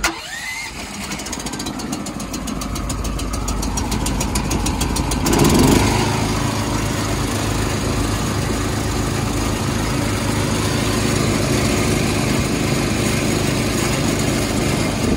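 DuroMax 440cc, 18 hp single-cylinder engine on a truck-mounted air compressor, cold-started on its key electric starter with the choke on. The starter whines up and cranks it with a rapid run of clicks for about five seconds. The engine then catches and runs steadily.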